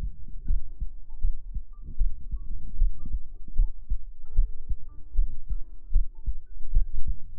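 A steady heartbeat, low soft thumps repeating a little under a second apart, with faint sustained notes of gentle background music above it.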